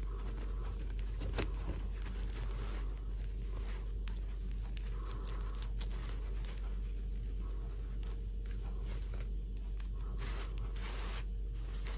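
Hands handling a plastic fashion doll and its fabric dress: scattered rustles, scrapes and small clicks over a steady low hum.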